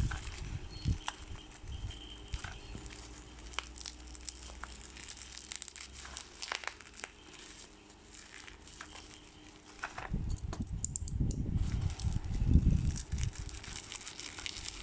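Product packaging being handled and opened: crinkling and small clicks of packaging. About ten seconds in it gets louder, with uneven bumps and rustling close by.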